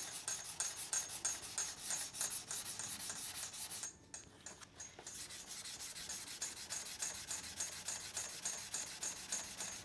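Sandpaper on a hand sanding block rubbing back and forth in quick, even strokes over a primed car bumper, pausing briefly about four seconds in and then carrying on. The strokes are sanding off the guide coat over the epoxy primer and a spot of Dolphin Glaze filler, done with light pressure.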